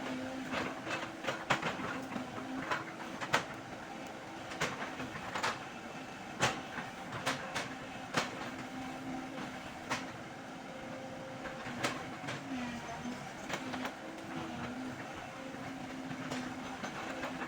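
Hydraulic excavator working: its diesel engine runs steadily and its pitch dips briefly a couple of times under load, over irregular sharp metallic clanks and cracks from the machine at work.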